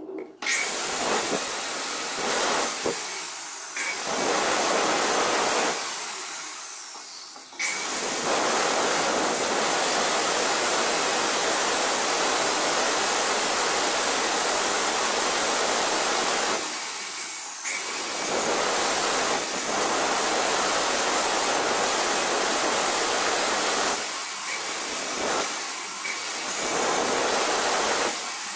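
Angle grinder with a diamond stone-cutting disc grinding into the edge of a granite countertop's sink cutout, running with a dense, loud cutting noise. It eases off briefly several times, and once, about six seconds in, it winds down for a couple of seconds before running at full speed again.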